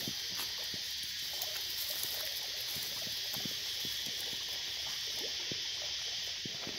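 Steady high hiss of bush ambience, with scattered light crackles and ticks of dry leaf litter and grass being disturbed.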